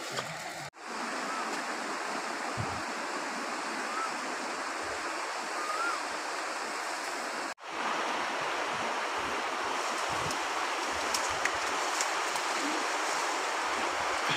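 Steady rushing of a flowing river, with no pauses except two momentary dropouts, about a second in and about halfway through.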